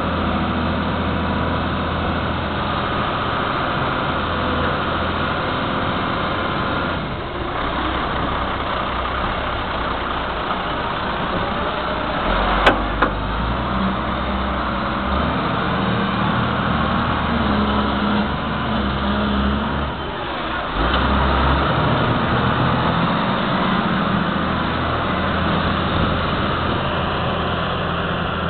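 Case wheel loader's diesel engine running steadily, its note dipping briefly twice and running louder in the last third. A single sharp click about halfway through.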